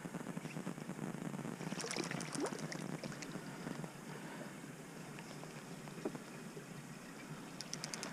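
Water lapping and trickling against the side of a fishing boat, with a short run of quick light clicks about two seconds in and again near the end.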